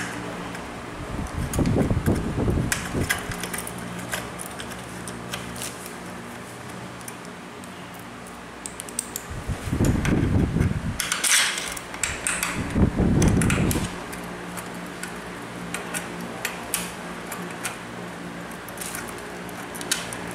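Hands fitting and bolting a handle onto a pole pruner's shaft: scattered small metal clicks and clinks, a short crinkly rustle, and several dull handling bumps, over a steady low hum.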